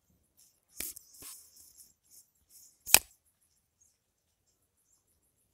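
A few faint rustles and knocks, with one sharp, loud click about three seconds in.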